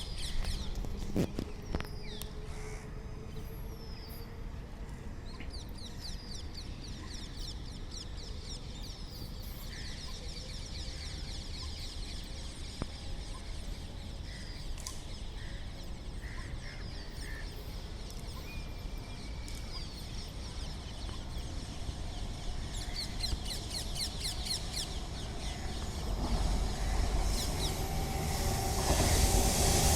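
Birds chirping over quiet outdoor ambience, then an approaching train's rumble rising in the last few seconds.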